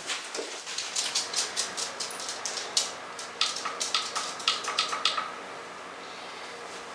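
A quick, irregular string of sharp clicks, about four a second, starting about a second in and stopping about five seconds in, with a faint steady tone under the later clicks.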